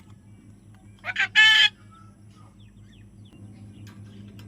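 A parrot gives one short, harsh call about a second in, led by a couple of quicker notes. A low steady hum runs underneath.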